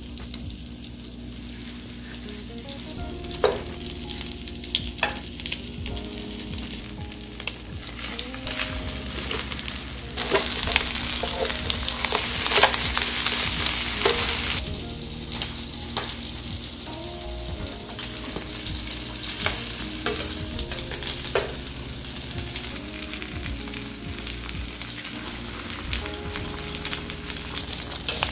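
Egg-battered jeon sizzling in oil in a frying pan, with scattered small clicks. The sizzle grows louder for a few seconds midway.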